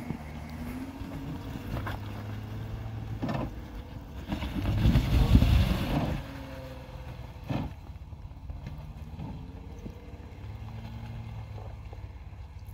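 A 4x4 engine running low and steady as an off-road vehicle climbs a rocky ledge. There is a louder rush of engine and tyre noise about four to six seconds in, and sharp knocks a little before and after it.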